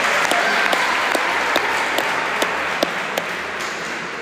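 Spectators applauding a point just won, the applause dying away until only a few scattered claps stand out near the end.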